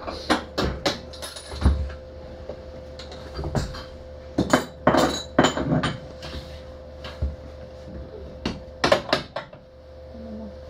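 A steady electrical hum in a funicular car, under a string of sharp clicks and metallic clinks, thickest around the middle and again about nine seconds in.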